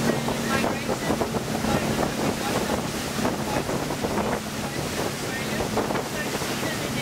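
A boat's engine runs with a steady low hum, under wind buffeting the microphone and the rush and splash of sea water.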